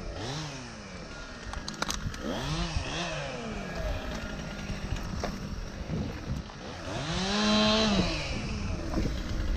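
Two-stroke chainsaw revved up and back down several times, the longest and loudest rev about seven seconds in, idling between.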